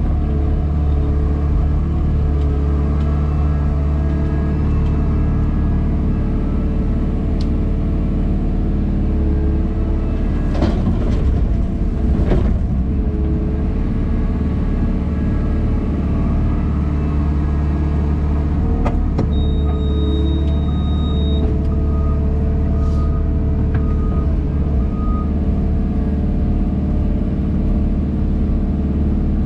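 JCB Pothole Pro wheeled excavator's diesel engine running steadily under hydraulic load, heard from inside the cab while the digging arm works. A few knocks a third of the way in and again after halfway, then a brief high tone and some short beeps.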